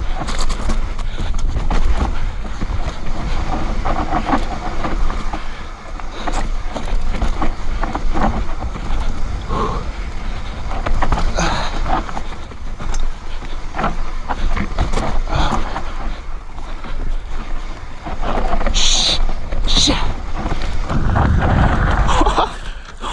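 Production Privée Shan No.5 mountain bike descending a rough dirt trail: tyres rolling over dirt and stones, with frequent knocks and rattles from the bike over bumps, and wind rumbling on the action camera's microphone.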